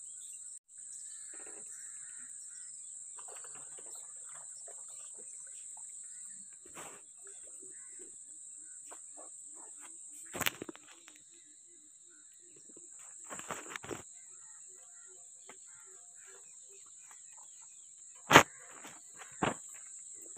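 Insects chirring steadily in a continuous high-pitched drone. A few sharp knocks and handling noises break in, the loudest about two seconds before the end.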